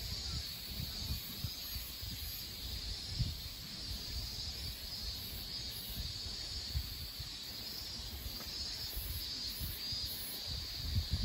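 A steady, high-pitched insect chorus, with an irregular low rumble underneath that grows stronger near the end.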